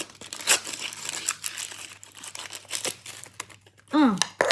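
Plastic packaging crinkling, with small plastic pieces clicking as they are handled. A brief falling vocal sound comes near the end.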